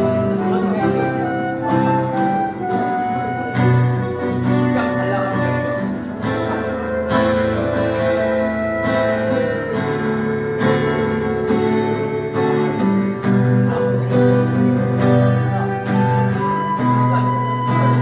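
Flute playing a slow melody of long held notes over an instrumental backing accompaniment.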